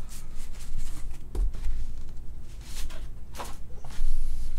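Cardboard photo mount being handled and turned over in the hands: rubbing and scraping of the card, with a few short scuffs.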